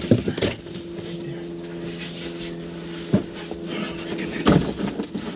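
A steady engine hum holding one low pitch, which stops about four and a half seconds in. A few sharp clicks and knocks from car parts being handled cut in, one near the start, one about three seconds in, and a louder one about four and a half seconds in.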